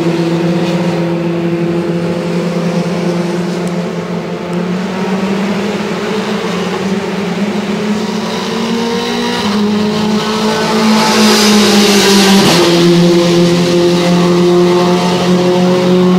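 Open-wheel single-seater race car's engine running at high revs, growing louder as the car comes closer. About twelve and a half seconds in, the car passes close by and the engine note drops suddenly in pitch, then holds steady at the lower pitch.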